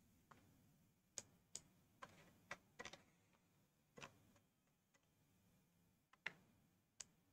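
A few faint, short clicks at irregular intervals, about nine in all, from computer use as a PDF is scrolled through; one a little past six seconds in is the loudest.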